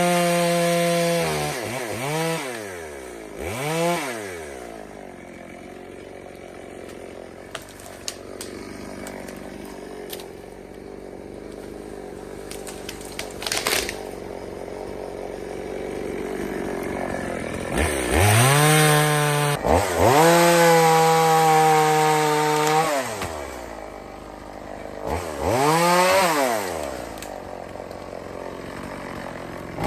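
EFCO two-stroke chainsaw revved in short throttle blips, dropping back to idle in between, then held at high revs for about five seconds about two-thirds of the way through, with another blip near the end.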